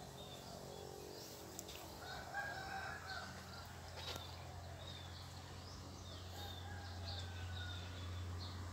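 Faint bird calls: a rooster crowing and small birds chirping, over a low steady hum.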